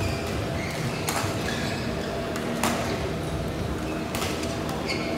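Badminton rally: a shuttlecock struck back and forth by rackets, three sharp hits about a second and a half apart.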